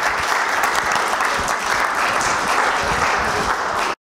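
Audience applauding steadily with many hands clapping; it cuts off abruptly near the end.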